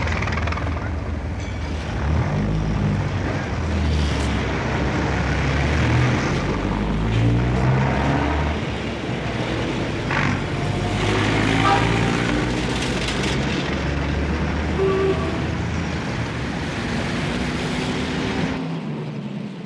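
Heavy road traffic: car and truck engines running and passing, their pitches rising and falling over a steady rush of tyre noise. The deep engine rumble drops away suddenly near the end.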